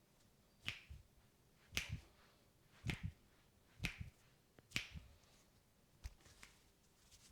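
A masseur's fingers snapping sharply over and over, about one snap a second, some in quick pairs, during a head massage.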